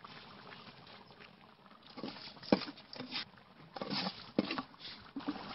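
Raw rice being shaken from a slotted metal ladle into a large aluminium pot of broth: irregular light pattering of grains, with a few sharp knocks, the loudest about two and a half and four and a half seconds in.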